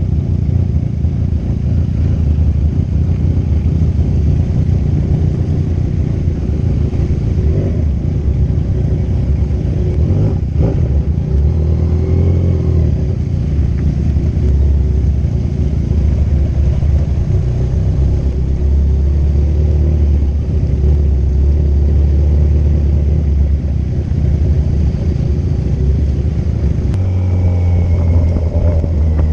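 Kawasaki Z1000's inline-four engine running steadily at cruising speed, its pitch shifting slightly, over continuous road noise.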